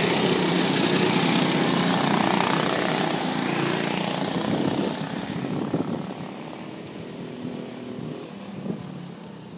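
A pack of go-karts racing past close by. Their engines are loud at first and fade over about five seconds as they pull away down the track.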